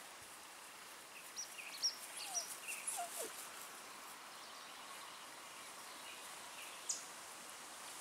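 Faint summer field ambience: a steady hiss of breeze through grass, with a cluster of short, high bird chirps about one to three seconds in and one more chirp near the end.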